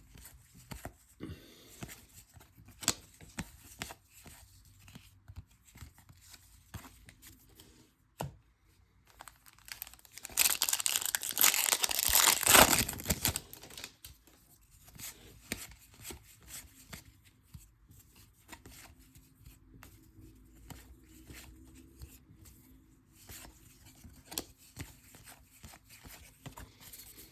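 Baseball cards handled with faint clicks and shuffles, then about ten seconds in a few seconds of loud tearing and crinkling as a wrapper is ripped open: a card pack or blaster box being torn open.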